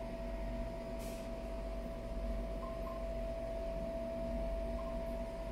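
A steady hum carrying one constant mid-pitched tone, with a faint click about a second in.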